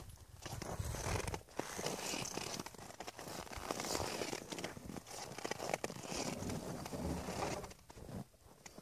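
Crunching and rustling footsteps of a horse and handler on packed snow, irregular, dying away near the end.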